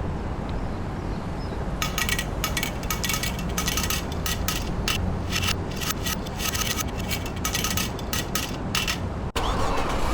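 Marbles rolling down a wooden marble run with a steady low rumble. From about two seconds in, a long run of rapid clicking and clinking with a slight ring as the marbles knock against the track pieces and each other. It breaks off abruptly near the end.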